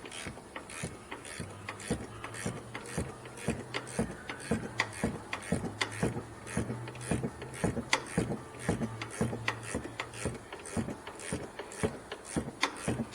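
Hand ratchet wrench clicking steadily, a few clicks a second, as it backs off tight strut upper mount nuts, with a faint low hum through most of it.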